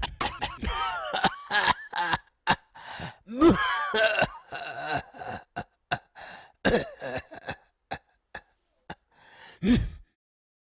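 A person coughing in a string of short, irregular coughs, with throat clearing and groaning sounds between them.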